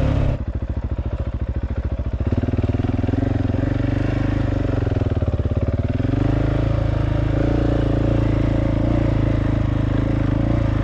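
Single-cylinder engine of a Husqvarna 701 Enduro LR dual-sport motorcycle running on a dirt trail. It eases off about half a second in, with its individual firing pulses clearly audible, then pulls again from about two seconds and runs steadily.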